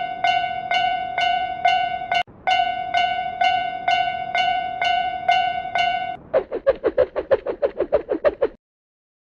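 Railroad-crossing alarm bell from a cartoon crossing, dinging about three times a second with one short break. About six seconds in it changes to a quicker run of lower, wobbling pulses that stops suddenly.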